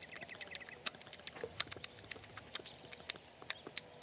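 Sound effect of a dog eating out of its food bowl: quick, irregular crunching clicks, several a second.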